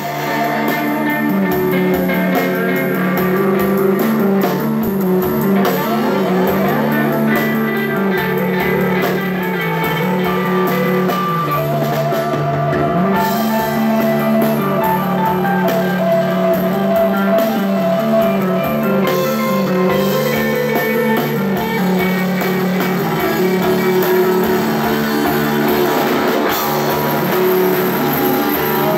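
A three-piece rock band playing live at full volume: distorted electric guitar, bass guitar and a drum kit with crashing cymbals, recorded from the crowd on a phone.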